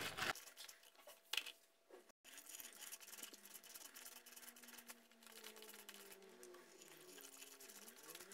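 Faint wet squelching and scraping as orange halves are twisted by hand on a plastic citrus reamer, with a brief louder sound about a second and a half in.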